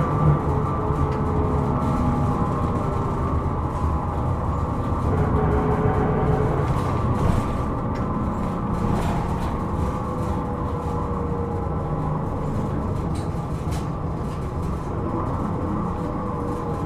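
Hino Rainbow II non-step diesel bus heard from inside the cabin while driving: a steady engine and drivetrain drone with a whining tone above it, on a bus the recordist flags as making an abnormal noise. The overall level drops slightly about seven seconds in.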